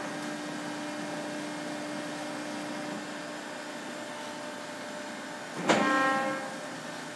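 Binns & Berry oil country lathe humming steadily, then near the end a sudden clunk followed by a whine of gears as the lathe is run up in its high speed range.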